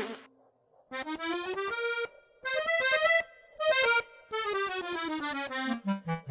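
Boohbah record player playing an instrumental tune in short phrases with brief gaps between them: a rising line, then one that climbs and falls back, then a long descending line near the end.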